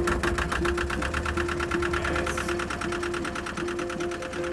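Two-cylinder Lister diesel engine of a narrowboat running steadily, a fast even knock of its firing, with its oil pressure back on the gauge.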